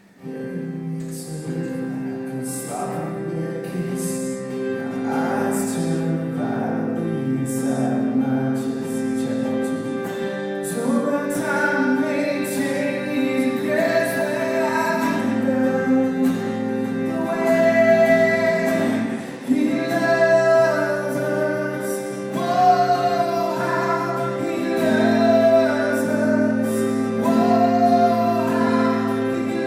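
Worship song sung over sustained instrument chords during a sound check. The sung melody comes in more strongly about a third of the way through.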